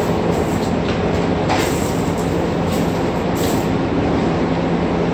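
Milwaukee core drill running steadily on its wall mount, coring concrete, with a constant low hum under the grinding noise. A few brief scraping hisses sit on top.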